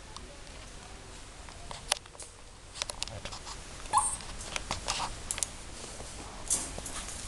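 Schnoodle and Spoodle puppies playing and scuffling, with scattered clicks and taps of paws and claws on the floor and a short high squeak about four seconds in.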